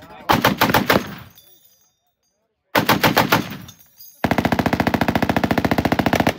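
Browning M2 .50 caliber heavy machine gun firing short bursts of rapid, heavy shots, about nine a second. Two bursts are broken by a gap. They are followed by a longer, very even run of rapid fire near the end.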